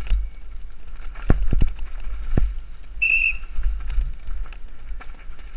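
Mountain bike descending a rough dirt trail, heard from a helmet-mounted camera: wind buffeting the microphone, with scattered sharp knocks and rattles from the bike over the ground. About three seconds in, a short high whistle-like tone sounds once.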